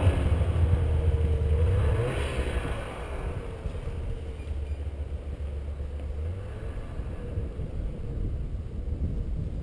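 Snowmobile engines: one climbs away up a steep hill, revving and fading into the distance over the first few seconds, while a nearby sled runs steadily with a low hum that changes about six seconds in.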